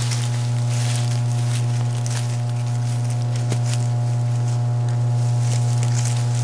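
Footsteps and rustling as several people push through dense brush and dry undergrowth, heard as scattered short brushing strokes. Under them runs a loud, steady low hum.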